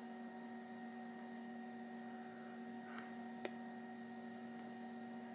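Steady electrical hum from a running 1989 Macintosh SE, several fixed tones at once, with a faint click about three seconds in and a sharper tick half a second later.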